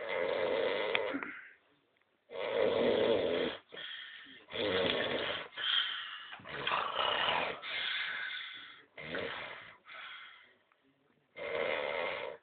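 A person snoring: about ten rasping snores in quick succession, on the breaths in and out, with short pauses between them.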